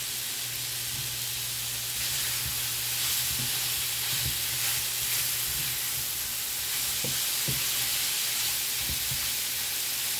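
Sliced smoked turkey sausage sizzling steadily in a frying pan, stirred with a spatula, with a few soft knocks and scrapes from about two seconds in. The sizzle is the liquid in the sausage cooking out.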